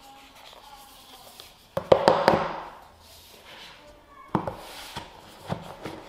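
Cardboard smartphone box being handled on a wooden desk: a burst of knocks and papery rustling about two seconds in as the lid comes off, then a few light taps as the lid and box are set down.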